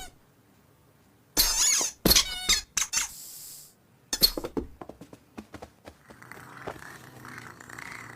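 Several short, high-pitched, squeaky cat mews in quick succession, wavering in pitch, with a brief hiss about three seconds in. A faint steady background sound follows.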